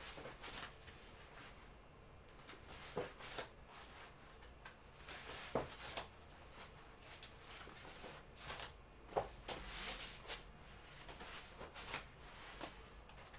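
Faint sounds of a person doing crunches on a foam exercise mat: breaths and the rustle of the body and mat, in short irregular bursts every second or two.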